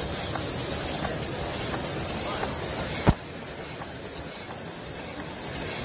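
Steady hiss of small running model engines exhausting air or steam. A single sharp click comes about three seconds in, and the hiss is a little quieter after it.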